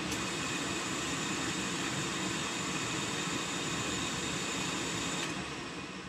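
Oil burner on a Buderus boiler running unfired while its fuel pump is bled of air: motor, blower fan and pump whirring steadily with a high whine. About five seconds in the whine stops and the burner motor winds down.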